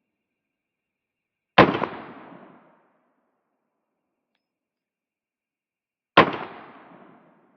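Two single 9mm shots from a Glock 19 Gen 5 pistol, fired slowly about four and a half seconds apart. Each is a sharp report followed by an echo that dies away over about a second.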